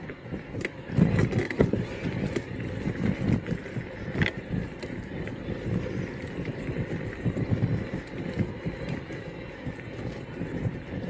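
Electric mountain bike being ridden over rough ground: a steady rumble of tyres on the trail with many small knocks and rattles from the bike, and a brief squeak about four seconds in.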